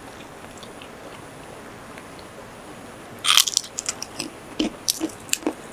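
Biting into and chewing crisp fried food: a loud crunch about three seconds in, then a run of sharp crunches as it is chewed.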